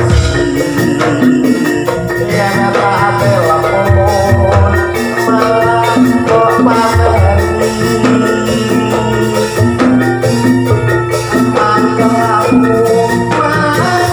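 Javanese gamelan ensemble playing, amplified through a PA sound system: bronze metallophones ringing rhythmic note patterns over drums and a steady low bass pulse.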